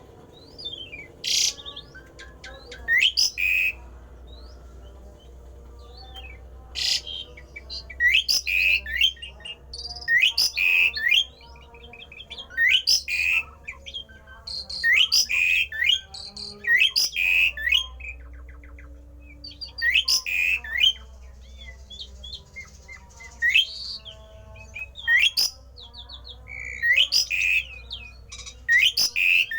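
A pied starling (jalak uren) singing an unusual song: loud phrases of chattering clicks and rising squeaky whistles, repeated every second or two.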